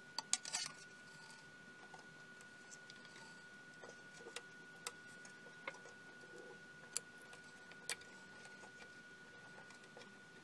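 Faint handling noise from hands working wires inside a metal electronics chassis: a few quick clicks at the start, then single sharp clicks and taps about a second apart. A faint steady high tone sounds underneath.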